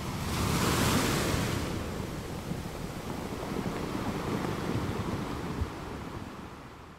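Rushing surf-like water noise that swells in over the first second, holds steady, then fades away near the end.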